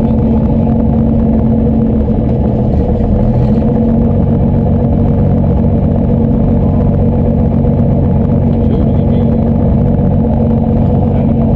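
Slingsby T-67 Firefly's piston engine and propeller running steadily at low taxi power, heard from inside the cockpit, with an even pitch and no revving.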